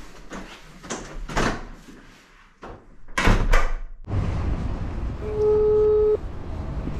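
Clunks and knocks of a door being handled and shut, loudest about three seconds in. Then a steady background rumble starts suddenly, and a single steady beep sounds for about a second.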